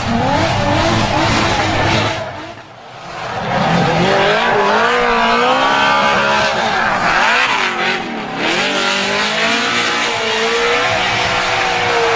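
Drift car engine revving hard, its pitch swinging up and down again and again, with tyre squeal. The sound briefly drops away about three seconds in.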